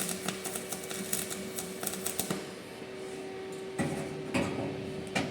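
Flux-cored arc welding with E71T-1 wire: the arc crackles and spatters in a fast, irregular run of sharp clicks, then stops a little before halfway. Three short knocks follow near the end over a steady hum.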